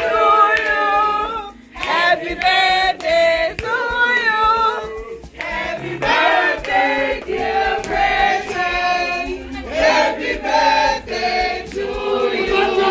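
A woman singing into a handheld microphone, amplified over a sound system, in sung phrases with short breaks.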